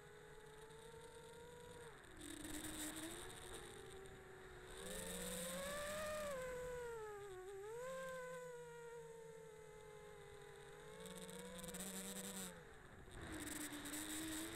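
Quadcopter's Emax Eco 2306 brushless motors and propellers whining in flight, picked up by the onboard camera. The pitch glides up and down with the throttle, and the rush gets louder in several stretches of a second or two when power is added.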